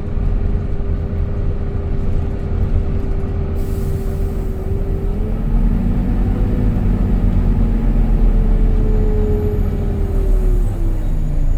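Volvo B9TL double-decker bus running, a low engine drone with a steady whine that rises a little about halfway through and falls away near the end as the bus slows.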